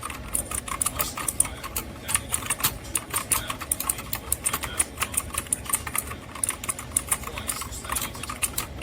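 Typing on a MageGee mechanical keyboard with clicky blue switches: a fast, irregular run of key clicks.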